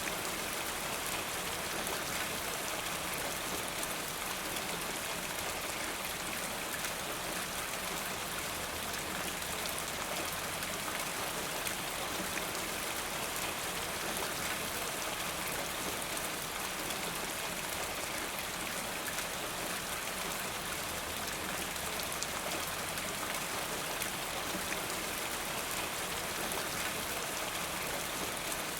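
Steady, constant rain falling, an even hiss with fine drop patter.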